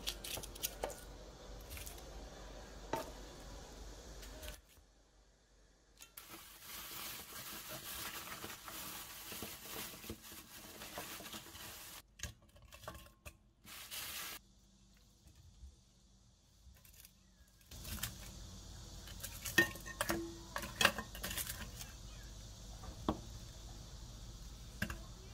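Kitchen handling sounds: scattered light knocks and clinks of food and utensils against a cooking pot, with a stretch of steady hiss in the first half.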